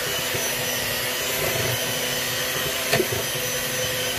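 Electric hand mixer running steadily, its beaters creaming softened butter in a bowl, with one sharp knock about three seconds in.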